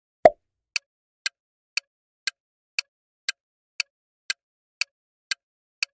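Countdown timer sound effect: an even clock tick about twice a second, after one louder pop at the start.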